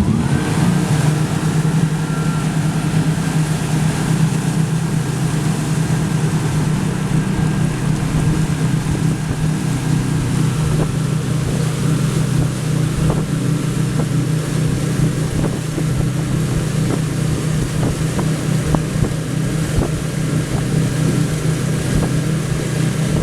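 Motorboat engine running steadily under way, a low drone, with loud wind noise buffeting the microphone.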